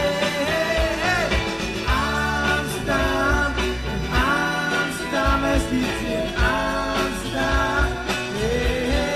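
Live rock band playing: electric guitars, organ, bass and drums with a steady beat, and a voice singing over them.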